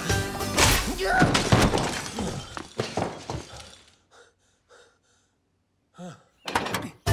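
Cartoonish film sound effect of a man getting an electric shock from a rigged front door: dense crackling with crashes and glass shattering as he is thrown back. About four seconds in, it gives way to four or so short, faint gasps.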